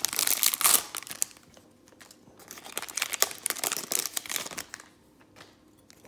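Crinkling and rustling of trading-card packaging as the cards are handled, in two spells: through the first second, and again from about two and a half to four and a half seconds in.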